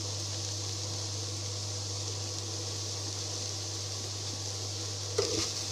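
Steady electrical hum with a constant fan-like hiss, typical of an induction cooktop running under a pan of cabbage and onion.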